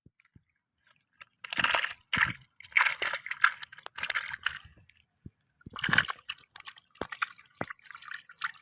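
Wet squelching and sloshing in irregular bursts, starting about a second and a half in, with a short lull in the middle.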